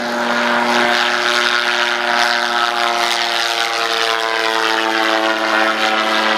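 Rotax 912 four-cylinder engine and pusher propeller of an MSquared Breese ultralight running at takeoff power as it lifts off and climbs past overhead: a steady droning hum that grows louder in the first second, its tone dropping slightly as it goes by.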